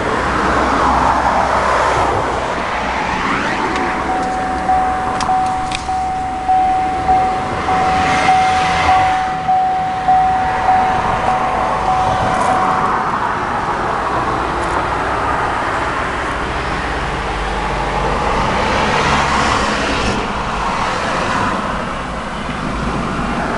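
Electronic chime from an Opel car's instrument panel, pinging over and over about once every 0.7 s for roughly nine seconds before stopping, over steady outdoor background noise.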